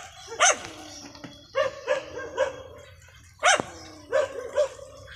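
A dog barking repeatedly, about eight short barks in runs of two or three.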